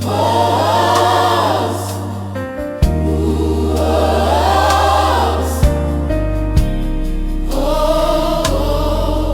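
Gospel music: a choir sings three long phrases, each swelling and fading, over sustained bass notes and keyboard chords.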